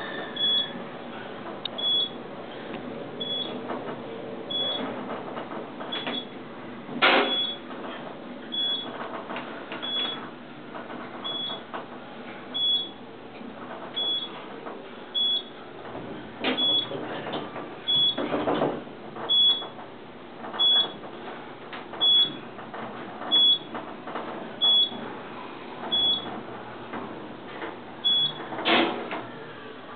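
Traction elevator car descending, its ride hum under a short high beep that repeats at an even pace, one for each floor passed. A few knocks sound along the way, and the beeps stop near the end as the car reaches the lobby.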